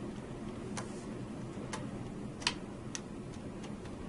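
Light, irregularly spaced metal clicks, about eight of them, the loudest about halfway through, over a steady low hum. They come from a No. 2 Phillips screwdriver working a mounting screw on the CES key-lock bracket of an NRX circuit breaker.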